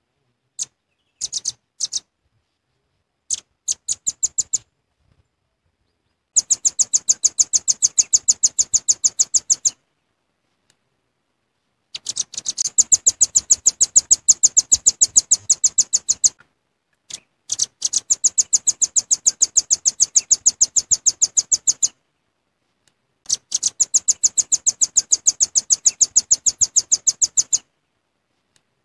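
Velvet-fronted nuthatch calling: a few short, sharp single notes, then four long, rapid trills of evenly spaced high notes, each three to four seconds long, with short pauses between.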